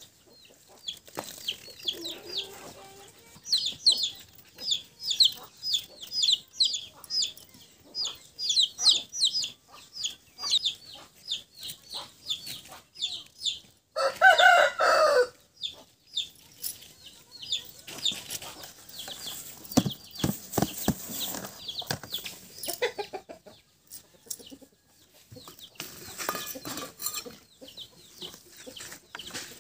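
Chickens calling: quick high chirping calls, two or three a second, through the first half, then a rooster crows once about fourteen seconds in.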